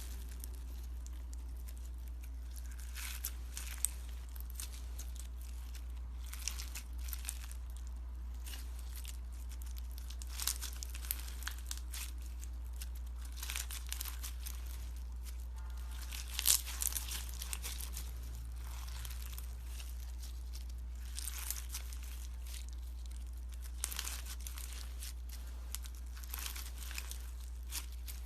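Slime being handled and squished, giving irregular crackles and pops, with a steady low hum underneath.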